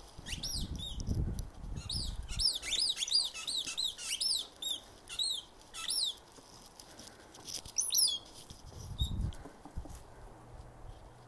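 A dog squeezing a squeaky toy ball in its mouth, setting off a quick series of short high squeaks, two or three a second for about five seconds, then a few more about eight seconds in. A low rumbling noise sits under the first couple of seconds.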